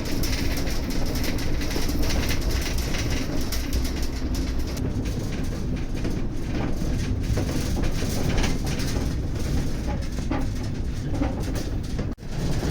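Steady rumbling noise of a running vehicle, with scattered light clicks and rattles.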